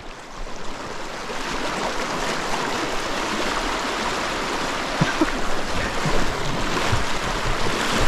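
River current rushing steadily around a wader standing in a fast riffle: an even, unbroken whoosh of moving water.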